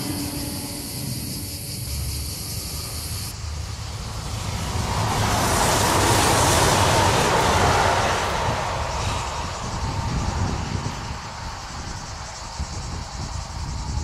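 Regional passenger train passing on an electrified line: a rushing of wheels on rail that swells to its loudest a little past the middle, then fades as the train draws away. In the first three seconds, before it, a steady high-pitched buzz.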